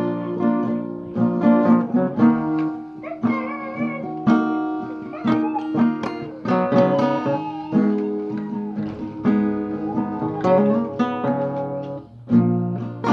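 Acoustic guitar playing, a mix of strummed chords and plucked notes.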